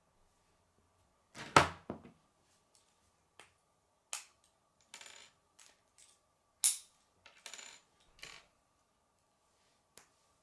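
Hard plastic K'nex pieces clicking and clattering as they are handled and put together, in a run of about eight irregular sharp clicks, the loudest about a second and a half in. A faint steady high hum runs underneath.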